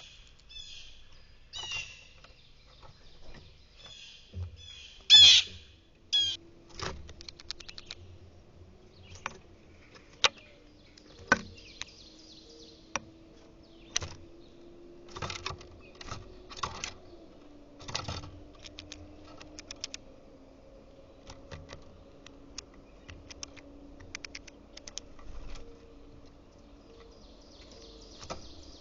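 Small birds chirping and pecking at a feeder. Bursts of high chirps are loudest about five seconds in, and sharp taps and clicks follow throughout. A faint low hum sets in after about six seconds.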